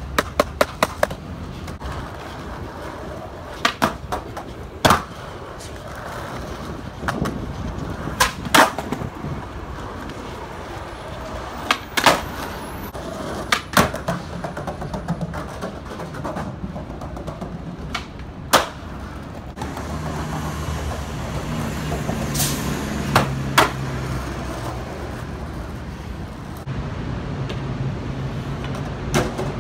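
Skateboard wheels rolling over pavement and polished stone ledges, with repeated sharp cracks of boards popping and landing. A low steady hum joins the rolling in the second half.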